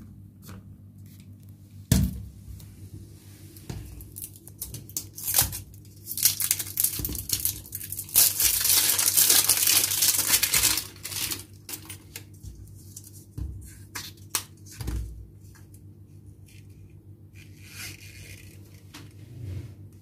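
Plastic slime tub being handled and opened: a few sharp clicks and taps of the plastic container, then several seconds of loud tearing and crinkling of its plastic wrap or seal about a third of the way in, followed by quieter rustling as the tub is opened.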